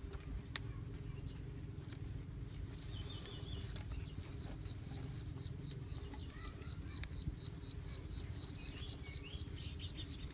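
Outdoor ambience with a rapid, even series of high animal chirps from about four seconds in, over low rumble and a faint steady hum. A single sharp click sounds shortly after the start.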